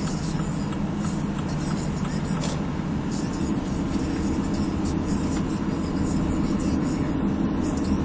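Steady road and engine noise of a moving car, heard inside its cabin.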